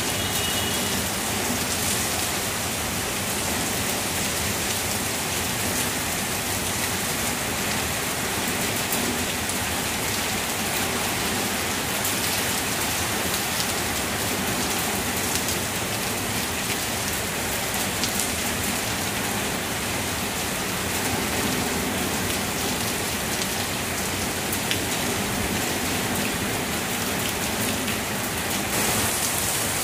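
Heavy rain falling steadily, with sharp ticks of single drops landing close now and then; the hiss grows a little brighter near the end.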